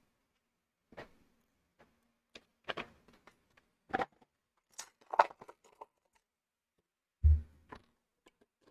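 Plastic LEGO pieces being handled and pressed together: scattered short clicks and rattles, with one louder dull thump about seven seconds in.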